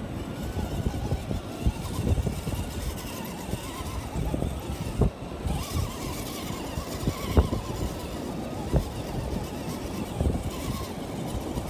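Small electric motors of RC scale crawler trucks whining faintly as they drive up through loose sand, under a low rumble with frequent short thumps and clicks.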